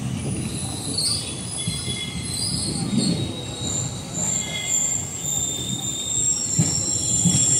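Indian Railways passenger train's wheels squealing in several thin, wavering high tones over a steady low rumble as the train rolls in to stop at a station platform.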